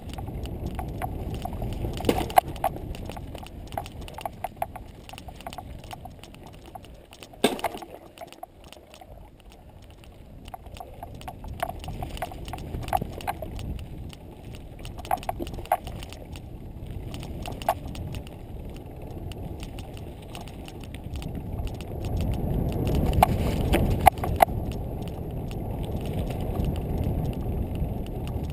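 Mountain bike ridden along a dirt forest trail: a steady rumble of tyres and wind with irregular clicks and rattles from the bike over the rough ground. It gets louder a little before the end.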